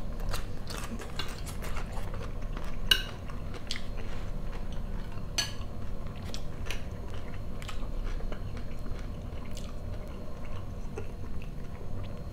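Close-up chewing and mouth sounds of a person eating fried potatoes with chanterelle mushrooms, with many small clicks and smacks. A metal fork clinks against the plate, and there is a sharper click about three seconds in.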